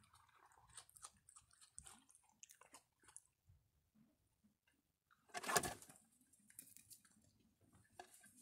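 Raccoons faintly crunching and chewing dry biscuits and kibble, with many small crackly bites over the first few seconds. A brief louder noise comes a little past halfway through as the animals move on the wooden table.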